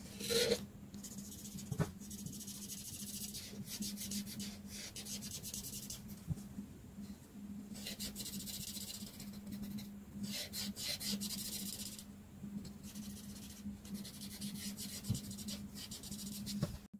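Felt-tip art marker rubbing across paper in repeated colouring strokes, each stretch of scratchy strokes lasting about a second with short pauses between, over a steady low hum.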